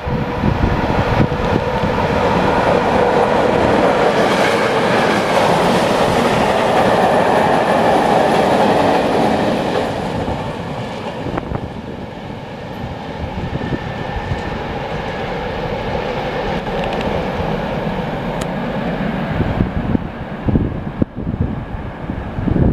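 A class 123 electric locomotive hauling a freight train passes close by, with a steady hum that is loudest in the first half, followed by the freight wagons rolling past on the rails. Gusts of wind buffet the microphone near the end.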